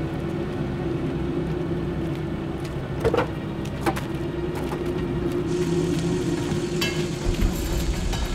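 Engine of an old Citroën DS saloon idling steadily, a low even hum, with two short sharp knocks about three and four seconds in.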